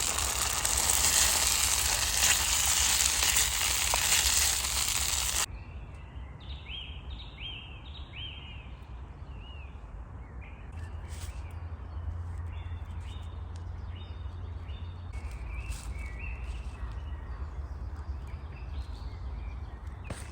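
A loud, steady hiss that cuts off abruptly about five seconds in. Then songbirds singing in a forest, with short arching chirps repeated in runs, a few faint clicks and a low background rumble.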